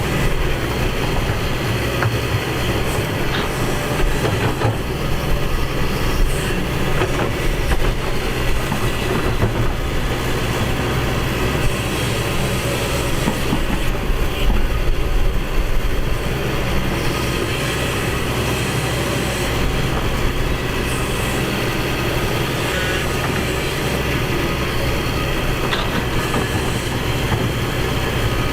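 Excavator's diesel engine running steadily with a low hum, with occasional metallic knocks and rattles.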